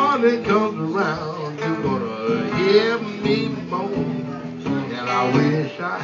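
Stratocaster-style electric guitar played live through an amplifier: single-note lead lines with bent notes over ringing chords.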